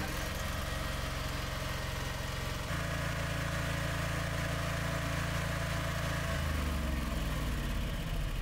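Propane-fed Honda 15 kW generator engine running, given more throttle to reach the speed at which the generator energizes. About three seconds in it gets louder and fuller, and about six seconds in its pitch drops and wavers.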